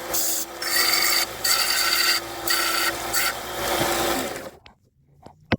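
Hand-worked abrasive strokes on a red maple branch screwdriver handle, a rough scraping repeated about once a second. The strokes stop about four and a half seconds in, and a single sharp click follows near the end.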